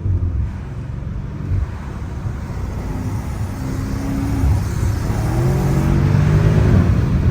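BMW M5 Competition's twin-turbo V8 pulling under acceleration, heard from inside the car, its pitch climbing in the second half and getting steadily louder.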